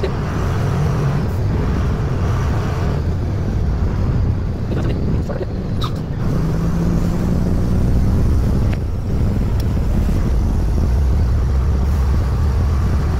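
Truck engine running steadily under way with road noise, heard from inside the cab.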